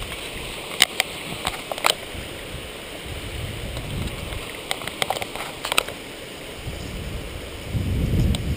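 Bicycle ridden through tall grass: a steady rushing hiss of grass brushing the bike and wind on a chest-mounted microphone, with low buffeting swells that grow loudest near the end. Sharp clicks and rattles from the bike sound in two clusters, about a second in and around five seconds in.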